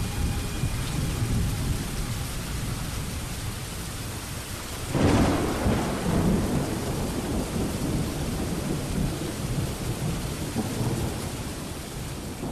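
Thunderstorm: steady heavy rain with a sudden thunderclap about five seconds in, rumbling on for a couple of seconds. The storm slowly fades toward the end.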